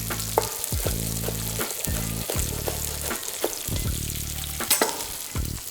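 Chicken thighs frying skin-side down in sesame oil in a pan, sizzling steadily. A few sharp knife knocks on a cutting board come through at irregular moments as spring onion is sliced.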